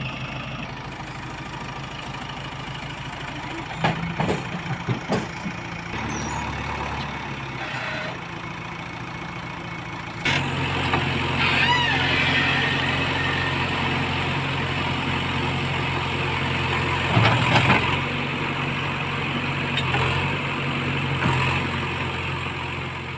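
JCB backhoe loader's diesel engine running steadily. About ten seconds in the engine gets louder and stays up. A few sharp knocks come around four to five seconds in and again near the end.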